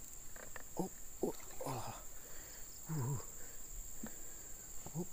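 A man's short grunts and wordless exclamations, several in the first three seconds and one near the end, while fighting a hooked fish, over a steady high-pitched insect drone.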